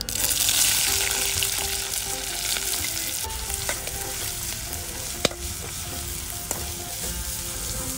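Chopped onions and green chillies dropped into hot oil in a metal kadai: a loud sizzle that starts at once and settles into steady frying. A metal spatula scrapes and knocks against the pan as they are stirred, with one sharp knock about five seconds in.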